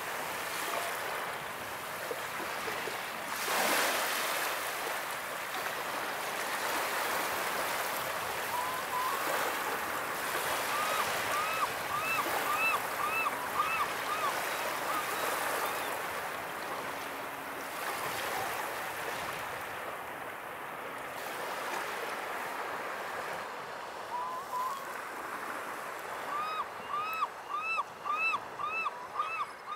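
Small waves washing over a pebble beach, with a bigger wave breaking about three and a half seconds in. Glaucous-winged gulls give two runs of repeated calls, one about ten seconds in and another near the end.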